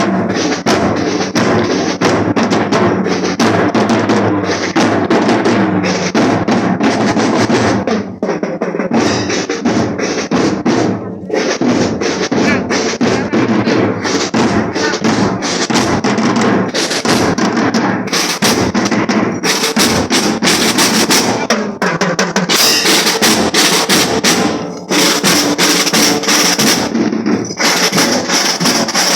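School marching drum band playing: snare and bass drums beating a fast, dense, continuous rhythm with rolls.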